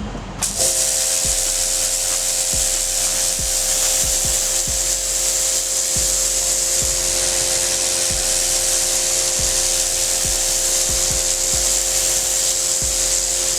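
Ryobi 2000 psi electric pressure washer spraying through its turbo (rotating) nozzle, starting about half a second in. The water jet makes a loud, steady hiss over the even hum of the electric motor and pump, with scattered low knocks.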